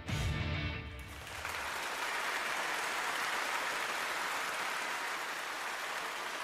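Music fades out about a second in, then a large crowd claps steadily.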